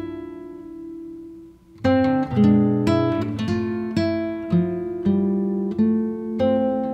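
Background music on acoustic guitar, plucked notes and chords. A held chord fades away about a second and a half in, then a run of plucked notes starts up again.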